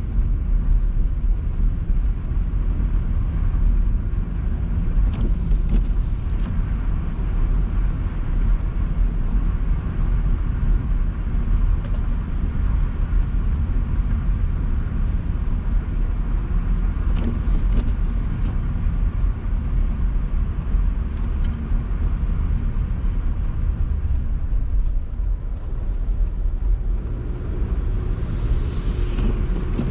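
A car driving along a road: a steady low rumble of engine and tyres, with a few faint ticks.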